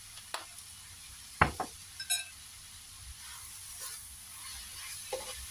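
A few sharp knocks and a ringing clink in the first couple of seconds, then a spatula stirring mixed vegetables in a stainless steel frying pan with a faint sizzle, mixing in just-added sesame oil.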